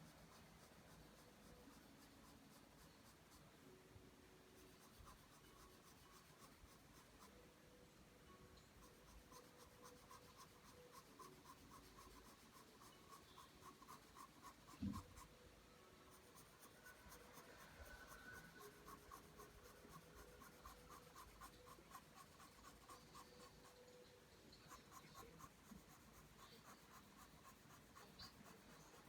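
Pencil drawing lines on paper: quiet, repeated scratching strokes, with a single short knock about halfway through.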